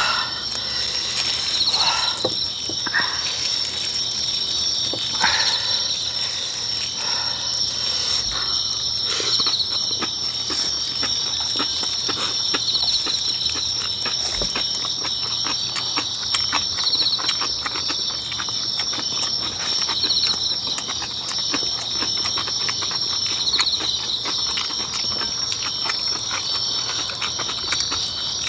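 Steady high chorus of night insects chirping without a break, with chewing and small clicks of eating over it.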